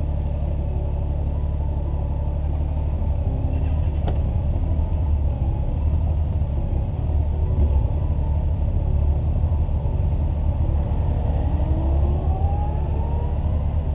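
Motorcycle riding at speed, with a steady rumble of wind and engine. In the last few seconds the engine's pitch climbs as it accelerates.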